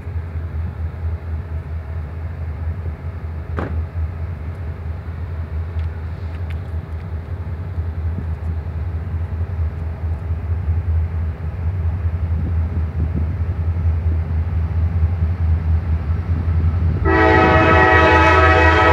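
Approaching Norfolk Southern diesel freight locomotive: a steady low rumble that grows slowly louder, then a loud multi-note air horn blast starts about two seconds before the end and is held.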